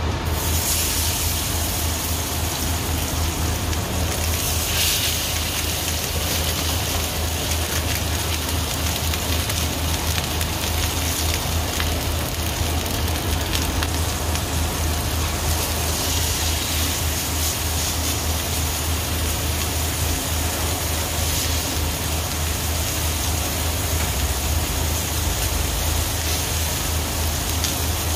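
Sirloin steak sizzling in a hot pan: a steady crackling hiss, with a low hum underneath.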